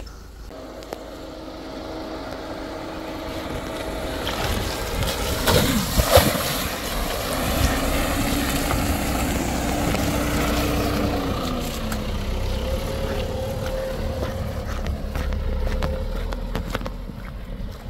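A Ford compact sedan's engine running as the car drives through a shallow stream, its tyres throwing up water in a steady splashing rush, with a sudden loud hit about six seconds in. The engine note drops about twelve seconds in as the splashing eases.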